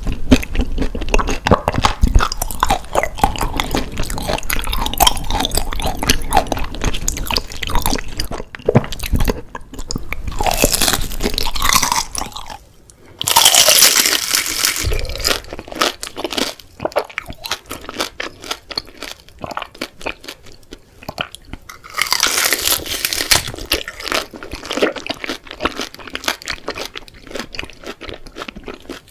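Close-miked eating of crispy fried daechang (beef large intestine): wet, clicking chewing throughout, with loud crunchy bites about a third of the way in, just after the middle, and about three quarters through.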